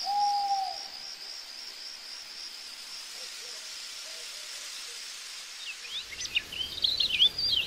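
Night insects, crickets by their sound, trilling steadily in a high pulsing chirr, with a brief whistled note right at the start. From about six seconds in, birds chirp in quick rising and falling notes over a low outdoor rumble.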